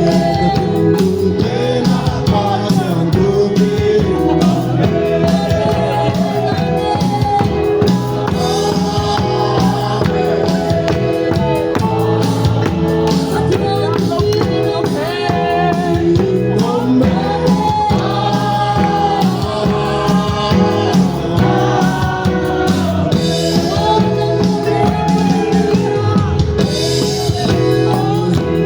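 Music with a singing voice over drums and accompaniment, going on steadily throughout.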